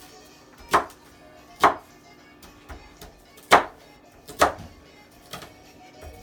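Butcher knife chopping an onion: four sharp chops in two pairs, about a second apart within each pair, with a few lighter taps between.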